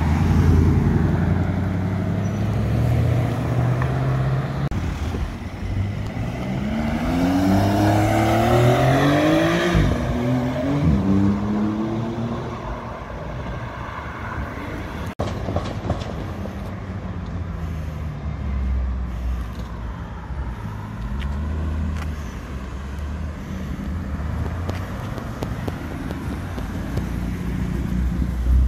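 Ford Mustang GT's 5.0-litre V8 exhaust running at low revs, then accelerating hard, its pitch climbing steeply for several seconds and falling away. After a cut about halfway, other cars drive past on a city street, with an engine getting louder near the end.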